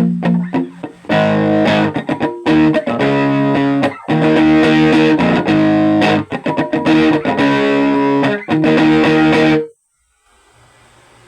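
Electric guitar played through a Marshall G10 Mk-2 10-watt practice amp: a run of chords with short breaks between them. The playing stops near the end, leaving only a faint amp hiss.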